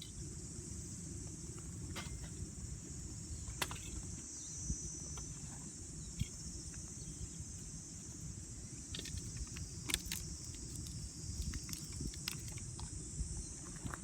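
Outdoor ambience: a steady high-pitched insect trill over a low rumble, with a few small scattered clicks.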